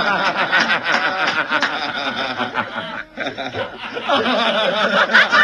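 People laughing hard, a short dip about three seconds in, then another round of laughter.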